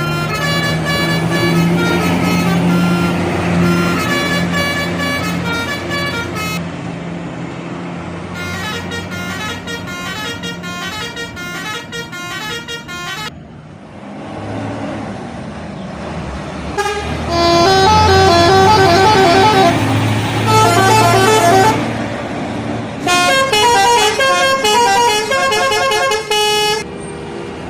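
Indonesian bus telolet horns playing quick multi-note tunes in about four separate bursts, the notes stepping rapidly up and down. A bus engine's low steady rumble runs underneath.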